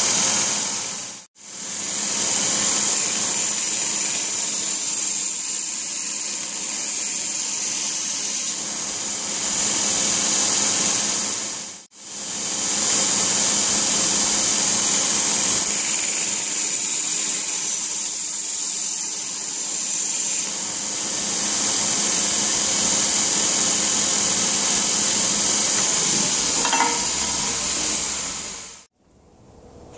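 Belt grinder running with a steady high hiss of the abrasive belt while a small forged steel blade is ground to a Scandinavian bevel. The noise cuts off abruptly twice and stops near the end.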